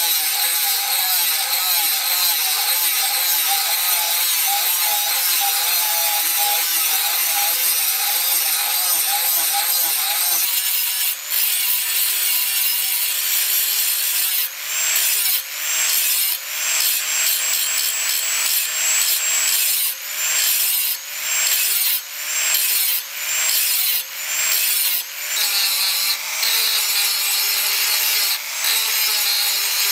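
Handheld angle grinder with an abrasive disc grinding a bearing-steel knife blade. The grinding is continuous over a faint motor whine, and from about halfway it comes in short passes about once a second for some ten seconds before running steady again.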